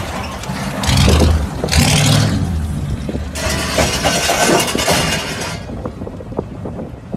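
Lowrider car's engine running at low speed as the car moves on its hydraulics with one corner lifted, with several loud bursts of rushing noise.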